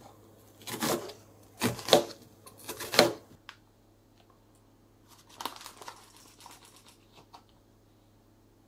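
Kitchen knife slicing through a raw new onion onto a plastic cutting board: about four crisp cuts in the first three seconds. After that come softer rustling and small ticks as flour is spooned into a glass bowl.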